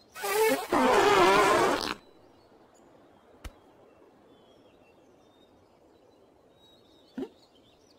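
A loud, wavering buzz lasting under two seconds, then quiet apart from a single click and a short, faint sound near the end.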